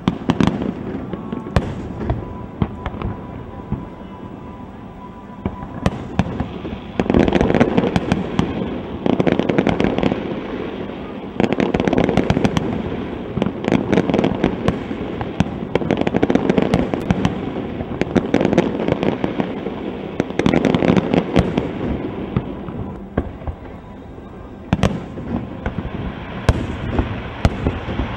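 Aerial fireworks shells bursting one after another with sharp bangs. The bangs come sparsely for the first few seconds, then thick and fast in loud clusters through the middle, with a short lull before they pick up again near the end.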